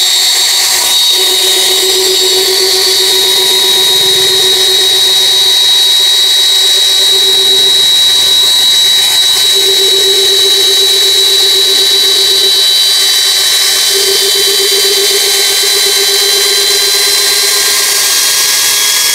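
Kingblue 13 mm cordless brushless drill boring into a log with a wood auger bit, run one-handed. The motor runs at a steady high whine and holds its pitch under the load.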